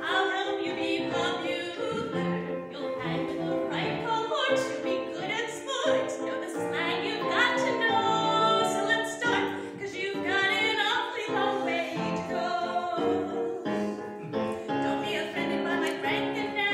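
A woman singing a musical-theatre solo, moving quickly from note to note, with vibrato on the longer held notes.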